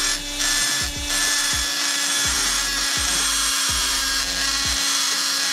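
Die grinder with a burr running steadily, cutting down a valve guide inside the port of a Honda CB500's aluminium cylinder head, a continuous high grinding hiss.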